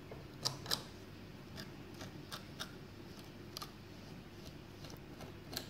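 Small metal spatula clicking and scraping against a ceramic dish and the model's base while smoothing filler is spread into a hole: about ten light, irregular clicks.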